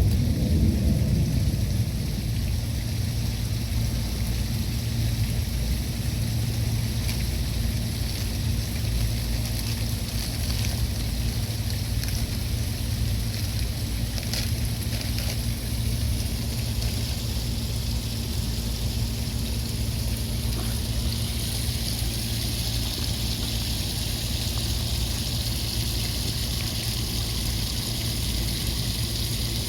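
Steady trickling water at a fish pond, over a low, steady rumble and hum.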